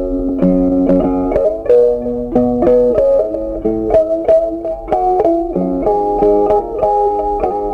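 Background music: a plucked-string melody, its notes struck a few times a second.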